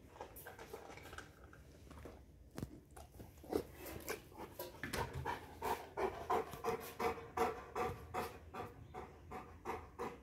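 Bernese mountain dog panting, a fast run of short breaths at about three a second that grows louder about four seconds in.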